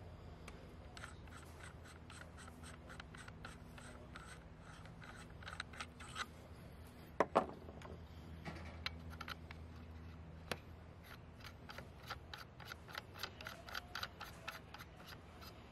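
Metal air strippers being unscrewed from and threaded onto an airgun's threaded muzzle: faint, rhythmic ticking and scraping of the threads, about two clicks a second at first and quicker near the end, with a louder double knock a little past halfway.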